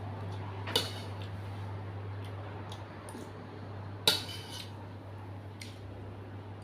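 Cutlery clinking against a bowl during eating: two sharp clinks about three seconds apart, with a few light taps in between, over a steady low hum.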